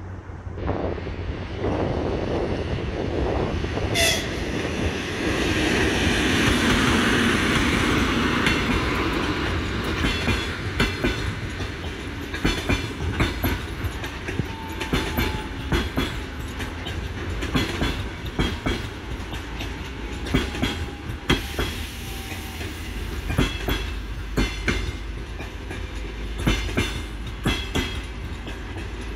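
An EP2K electric locomotive passing with a passenger train. A swell of locomotive noise fills the first several seconds. Then the coaches' wheels click over the rail joints in a steady rhythm.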